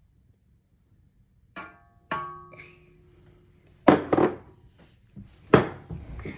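Kitchen utensils and dishes clinking and knocking: two ringing clinks, the second ringing on for about a second, then three louder sharp knocks.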